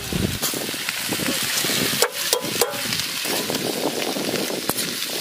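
Shredded cabbage sizzling in hot oil in a black iron kadai with fried carrots and beans as it is stirred with a metal spatula, with a few sharp clinks of the spatula against the pan about two seconds in.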